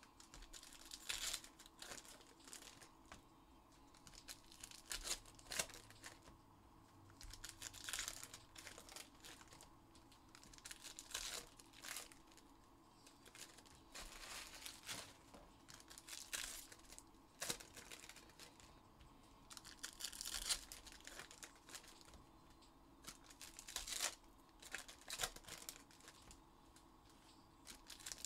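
Plastic wrapping on a box and packs of trading cards being torn open and crinkled by hand: irregular crackling and rustling, with sharper tearing now and then.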